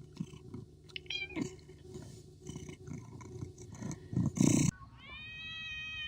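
Domestic cat sounds: scattered short clicks and a couple of brief high chirps over a steady hum, then a short loud noisy burst. About five seconds in, a long drawn-out cat meow begins, rising and then slowly falling in pitch.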